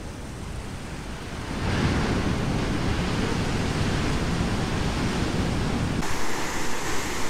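Steady rushing noise of a small stream cascading down the hillside, mixed with wind on the microphone. It grows louder and deeper about two seconds in and turns brighter and hissier near the end.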